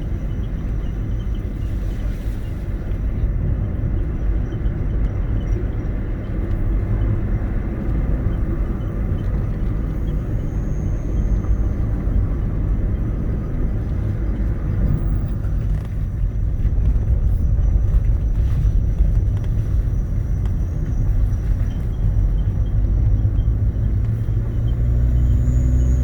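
Car on the move: a steady low rumble of engine and tyre road noise from inside the cabin, growing a little louder in the second half.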